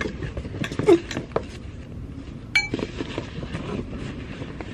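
Gloved hands rummaging through a cardboard box of odds and ends: scattered knocks, rustles and clicks, with one short ringing clink about two and a half seconds in.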